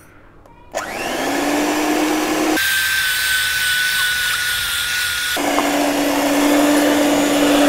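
Electric mixer starting up about a second in and beating chocolate muffin batter, running steadily; its motor note jumps higher for about three seconds in the middle, then drops back.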